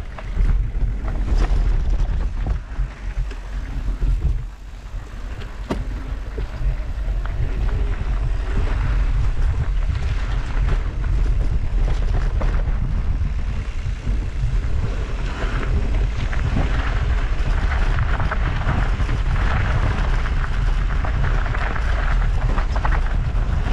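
Wind buffeting the microphone of a camera on a mountain bike riding dirt singletrack, over tyre and bike rattle from the rough trail. Uneven knocks from bumps in the first few seconds, then a steady rush.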